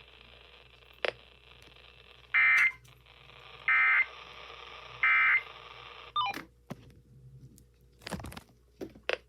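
Emergency Alert System End of Message tones received over a radio: three short, identical bursts of the shrill digital SAME data signal about a second and a half apart, over a steady radio hiss. About six seconds in the hiss cuts off with a short falling chirp, followed by a few soft clicks.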